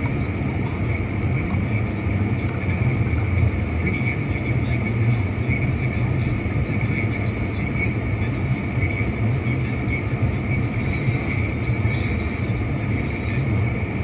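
Steady running noise of a vehicle: an even low rumble with a constant higher hum over it.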